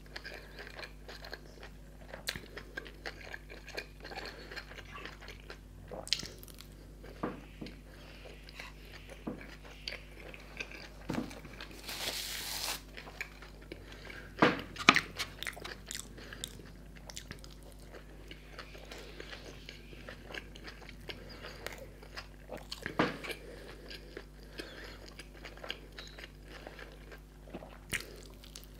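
Close-miked eating of tandoor-grilled achari momos: biting and chewing, with scattered mouth clicks and soft crunches. Louder bites come about 15 and 23 seconds in, and a brief hissing rustle about 12 seconds in.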